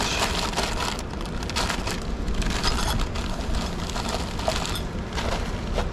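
Crinkling and rustling of a plastic crisp packet and plastic bag as hands dig chips out of the packet, with irregular crackles throughout over a low steady rumble.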